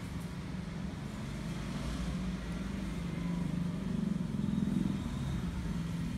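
Street traffic noise, with a motor vehicle's engine running that swells about two-thirds of the way through and then eases off.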